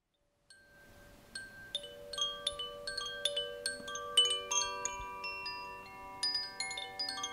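Chimes tinkling: many struck notes at scattered pitches, overlapping, each ringing on for several seconds. They start about half a second in.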